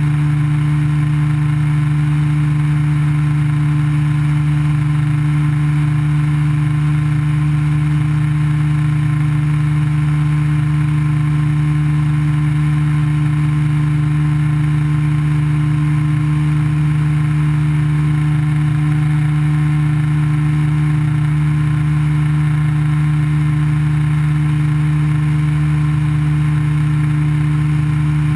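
Ultralight aircraft engine and propeller droning at a steady pitch in level flight, heard from the cockpit with a rush of wind over it.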